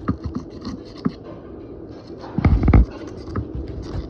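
Sandpaper rubbing on metal pliers in short, irregular scratchy strokes, with a dull thump or two about two and a half seconds in.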